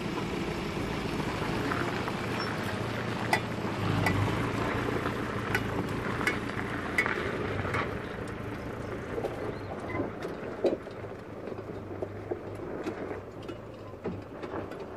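Four-wheel-drive ute driving slowly past and down over a gravel hill crest: a low engine hum with tyres crunching on loose gravel and small stones clicking under them. It grows fainter about halfway through as the vehicle drops away over the crest.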